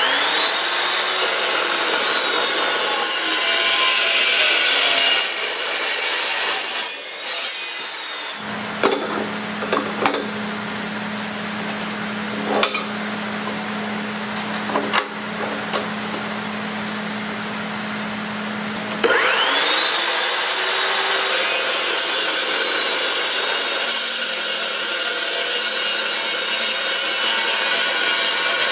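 Evolution S355 cold cut chop saw with a 14-inch cold cut blade: the motor whine rises as it spins up, then the blade cuts through steel tube. Partway through there is a quieter stretch with a steady low hum and a few sharp metal knocks as a round steel pipe is set and clamped in the vise. The saw then spins up again with a rising whine and cuts into the pipe.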